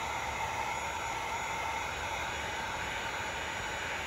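Handheld electric heat gun running steadily: a constant blowing hiss with a faint steady whine, aimed at the end of a plastic spiral suction hose to soften it.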